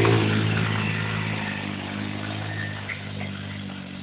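Linhai Joker 50cc quad's small engine running at a steady pitch as the quad pulls away over snow, growing fainter as it moves off.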